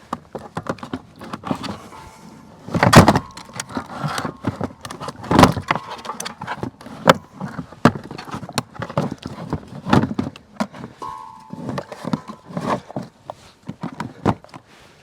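A heavy 6-volt golf cart battery being wrestled into place: a run of knocks, clunks and rattles, with the loudest thuds about three and five and a half seconds in.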